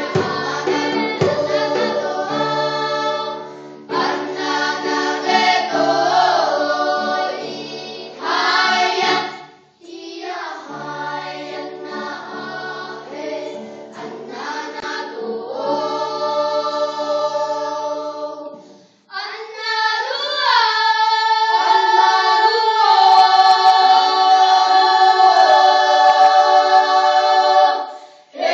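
Children's choir singing a Bunun Aboriginal song unaccompanied, in several voice parts, in phrases broken by short breaths about 4, 10 and 19 seconds in, ending in a long held chord whose pitches shift slowly.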